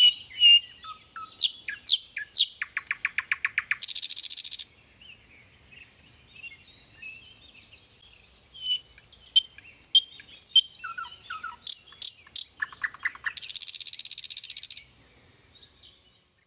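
Songbirds singing: scattered high chirps and whistles, two quick trills of rapidly repeated notes, each followed by a harsh buzzy phrase about a second long. The song stops near the end.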